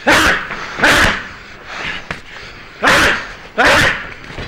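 Two pairs of hard punches landing on a trainer's body bag, each blow with a sharp grunted exhale.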